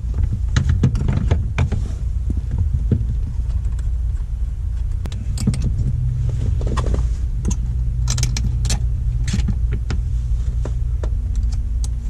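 Scattered metal clicks and clinks of short-shifter linkage parts being handled and fitted, busiest in the middle, over a steady low rumble.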